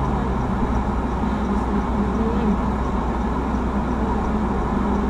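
Steady road and engine noise of a car driving at highway speed, heard from inside the cabin.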